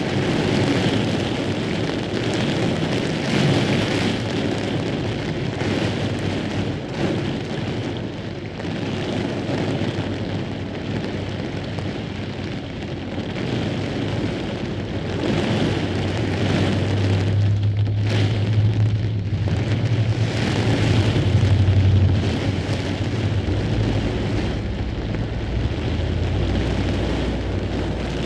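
Heavy rain falling in a thunderstorm, a steady rushing hiss. About halfway through, a deep low rumble comes in under the rain and keeps going.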